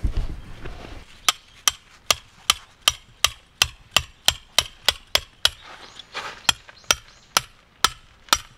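Metal tent peg being hammered into fine gravel ground: a run of about eighteen sharp, ringing metal-on-metal blows, roughly three a second, with a short break a little past the middle.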